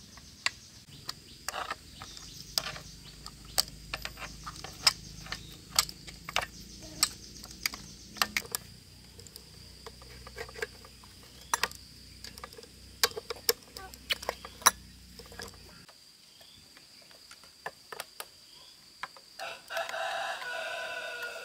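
Chickens, with one drawn-out chicken call near the end, over many scattered sharp clicks and taps. A steady high insect drone runs underneath, and a low hum stops about two-thirds of the way through.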